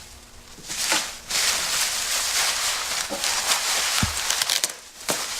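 Plastic bubble wrap crinkling and rustling as it is pulled and stripped off by hand, a dense crackly rustle, with a few sharp ticks near the end.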